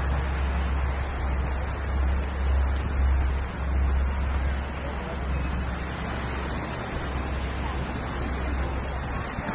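Waves breaking on a rocky shore, a steady hiss, under a low rumble of wind buffeting the microphone that swells and falls, strongest around two to four seconds in.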